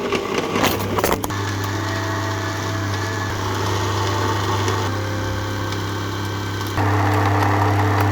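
An electrical appliance humming steadily, with a deep mains hum and a hiss over it; it gets louder about seven seconds in.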